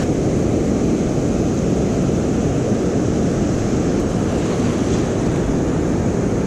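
Ocean surf washing steadily at the beach, with wind buffeting the microphone; an even, unbroken noise.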